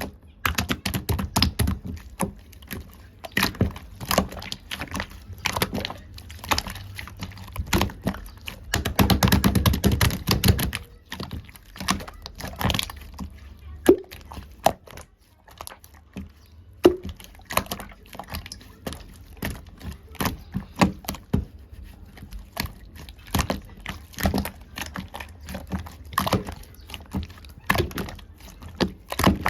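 Watery 'pungdeong' slime squeezed and pressed by hand, making irregular wet clicks and pops, with a dense, fast run of clicking about nine to ten seconds in.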